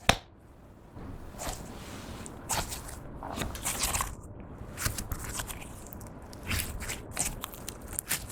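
Clear slime being handled and mixed by hand, giving irregular sticky clicks and crackles.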